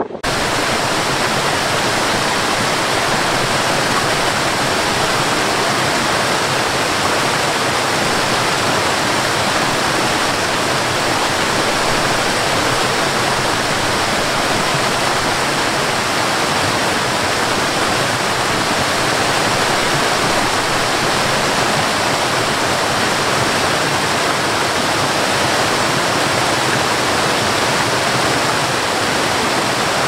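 Waterfall: water cascading down rock steps in a constant, loud rush with no breaks. It starts suddenly right at the beginning and stops abruptly at the end.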